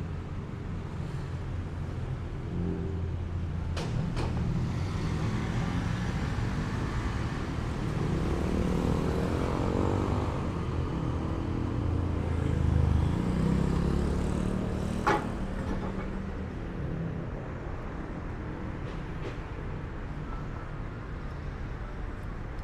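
City street traffic: vehicle engines running steadily, with one vehicle swelling past about halfway through. A couple of sharp clicks come early, and a single louder knock follows just after the vehicle passes.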